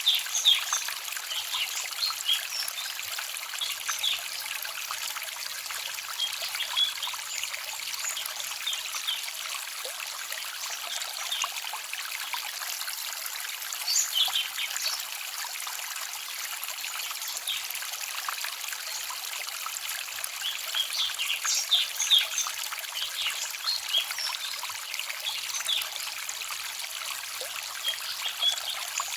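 Small forest stream trickling and babbling steadily, with clusters of brief high bright notes now and then over the water.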